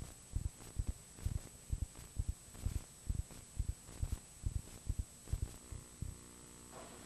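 Videotape noise at a gap between camcorder recordings: low thumps, about two or three a second, over a faint hiss and a thin high whine. Near the end the thumps stop and a steady electrical hum takes over.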